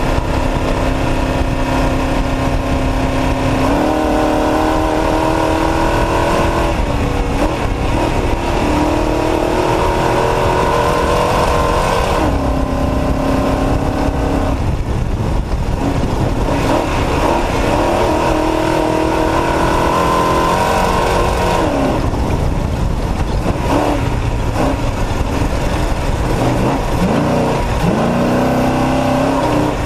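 Off-road race truck's engine running hard, its pitch climbing and then dropping back sharply several times, about 4, 7, 12 and 21 seconds in, as it comes on and off the throttle or changes gear. Under it is a constant loud rush of wind and road noise.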